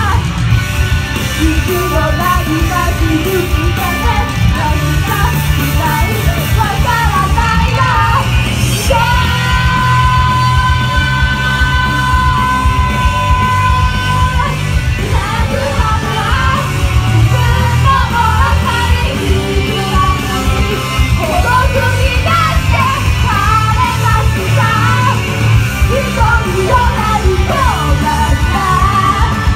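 Live pop-rock music at loud volume: a backing track with a heavy, steady bass beat, two women singing into microphones, and shouting along with the song. A long note is held for several seconds near the middle.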